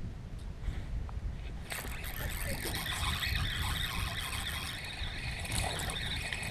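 Spinning reel whirring and clicking as a hooked speckled trout is fought in on a light rod. It starts suddenly a couple of seconds in, over a low rumble of wind on the microphone.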